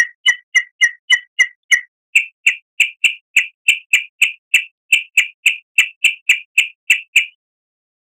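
A bird calling: a long series of short, sharp notes at about three a second, shifting to a slightly higher pitch about two seconds in and stopping shortly before the end.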